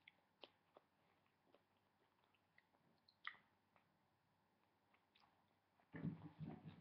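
Faint chewing of a piece of raw tomato: scattered soft wet mouth clicks, with a louder stretch of chewing about six seconds in.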